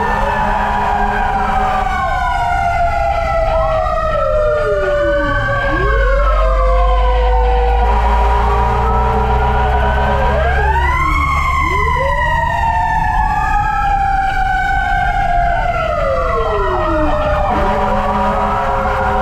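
Fire engine siren wailing, heard from inside the cab: more than one siren sweeps up quickly and falls slowly, overlapping out of step. A low engine drone runs beneath, strongest in the middle.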